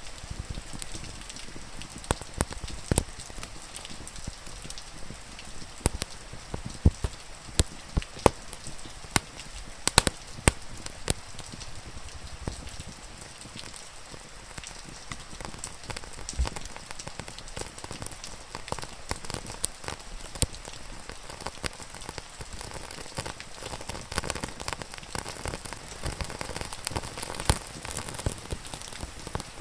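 Steady rain falling, with irregular sharp pops and crackles from a wood fire.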